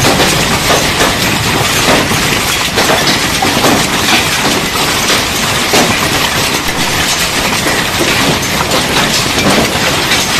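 Storm wind and heavy rain, a loud, continuous rushing noise with a dense crackle running through it, with gusts buffeting the microphone.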